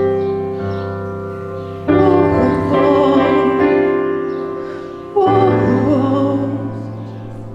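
Slow worship music: sustained keyboard chords, each struck and left to fade, changing about two seconds in and again about five seconds in, with a wavering melody line over them.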